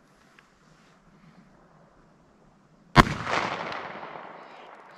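A single shot from a .45 Colt handgun firing a 200-grain hollow point about three seconds in, sharp and loud, followed by an echo that fades out over about two seconds.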